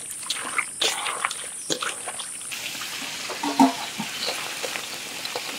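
A hand squelching raw chicken pieces through a wet spice marinade in a metal bowl, a series of short wet squishes. About two and a half seconds in, it changes to the even hiss of chicken frying in hot oil, with light clicks.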